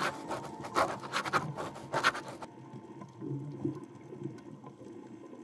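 Underwater sound from a scuba dive: a low rumble with a few sharp bursts of bubbling, as a diver's regulator exhales, in the first two and a half seconds. After that it goes quieter and duller.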